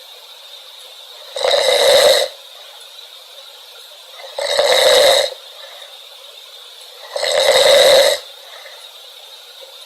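A person snoring loudly and rhythmically: three snores, each just under a second long, about three seconds apart.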